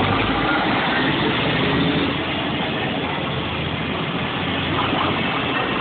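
Diesel engine of a Scania fire engine pulling away, loudest as the cab passes close in the first couple of seconds, then easing slightly as the truck moves off down the road.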